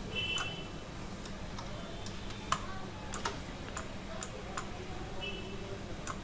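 Computer mouse and keyboard clicks, about a dozen single clicks at irregular intervals, over a faint steady hum.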